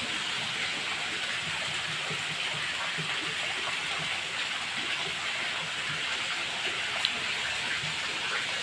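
Water pouring from an inlet pipe into a concrete koi pond: a steady splashing rush.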